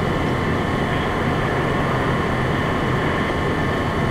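Fire engine's engine running steadily at the fire scene, heard from inside the cab as a constant drone with a steady hum.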